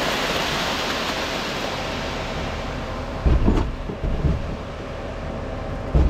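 Wet concrete sliding down a ready-mix truck's steel discharge chute: a steady rushing hiss over a low rumble, with two heavy low thumps a little past the middle.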